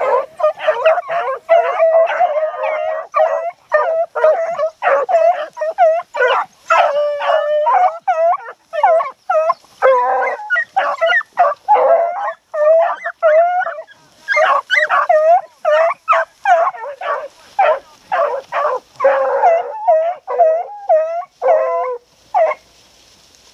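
A pack of beagles baying in full cry, many overlapping bays and yelps in quick succession, the sound of the hounds running a rabbit's scent trail. The baying stops shortly before the end.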